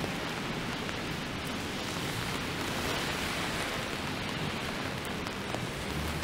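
Steady rain on a wet city street, with car tyres hissing on the wet road; the hiss swells for a moment about halfway through.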